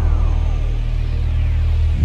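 Dark ambient background music: a deep, steady drone with faint high tones gliding slowly downward in pitch.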